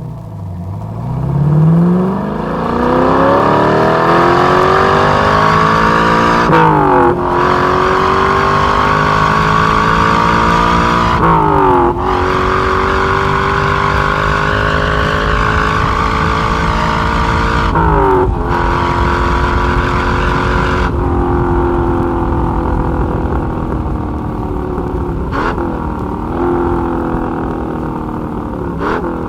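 1961 Corvette's fuel-injected 283 V8 (315 hp) accelerating hard from a standstill through its close-ratio four-speed gearbox. The engine note climbs, drops at each of three upshifts and climbs again, then settles to a steadier, lower note with two brief dips near the end.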